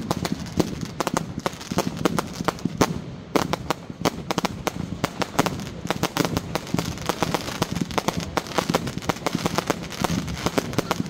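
Fireworks bursting at a display: a dense, unbroken run of sharp bangs and pops, several a second.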